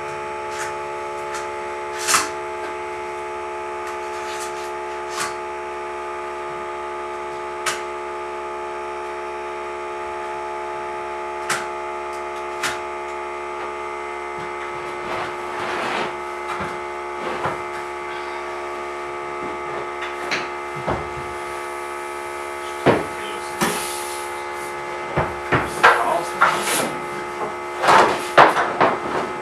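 A steady electric hum throughout, with scattered wooden knocks as loft floor boards and framing are handled, turning into a quick run of loud sharp knocks and bangs near the end.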